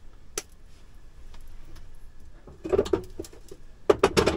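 A few short knocks and clicks in a small room: one click near the start, then two brief clusters of knocks later on.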